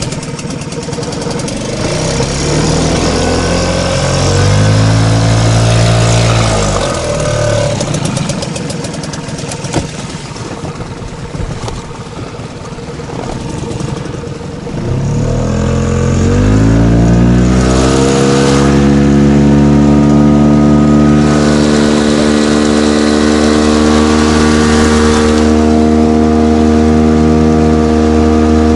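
Small outboard motor on an inflatable boat running. A few seconds in it revs up briefly and drops back, then about fifteen seconds in it is opened up and holds a steady high speed as the boat gets under way.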